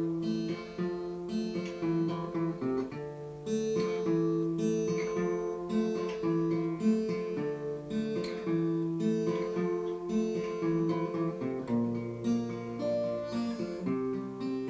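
Acoustic guitar playing an instrumental passage of picked and strummed chords in a steady rhythm, with a change of chord about twelve seconds in.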